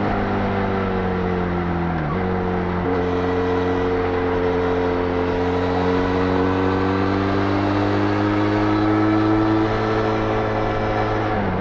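Benelli Leoncino 500's parallel-twin engine running hard at highway speed through its stock exhaust. The engine note dips sharply about two seconds in and again near the end, and in between climbs slowly as the bike pulls toward top speed.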